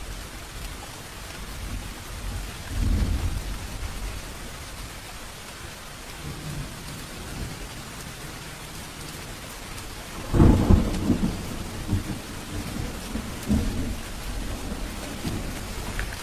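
Steady rain falling during a thunderstorm, with low thunder rumbling about three seconds in. About ten seconds in a loud thunderclap strikes suddenly and rolls on in several fainter rumbles.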